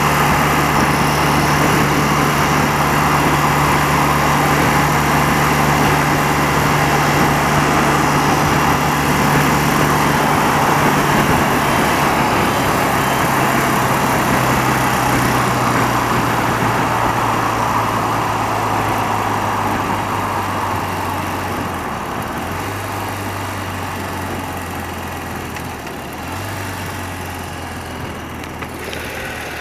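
Motorcycle engine running under a steady rush of wind at motorway speed. From about halfway the engine note drops in steps and the wind rush fades as the bike slows onto an exit slip road.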